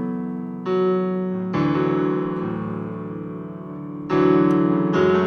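Piano playing the slow introduction to a worship song: sustained chords, each held for a second or more, changing four times.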